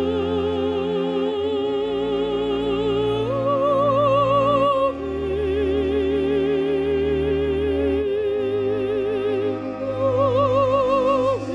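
Operatic mezzo-soprano singing long held notes with wide vibrato over sustained low instrumental accompaniment. The voice steps up to a higher note about three seconds in, drops back near five seconds, and rises again near the end.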